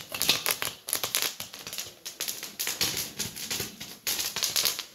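Popcorn made from small local maize kernels popping in a covered pot, a dense, irregular run of sharp pops and clicks.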